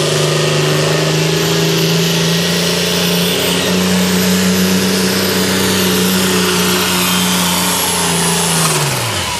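Turbocharged New Holland diesel pulling tractor running flat out under load as it drags a weight-transfer sled; the engine note holds steady, steps up slightly a few seconds in, then drops away sharply near the end as the throttle comes off and the pull finishes.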